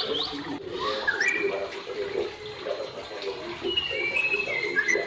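Pet parrots chattering and whistling. A rising whistle comes about a second in, and longer level whistles come near the end over continuous chatter.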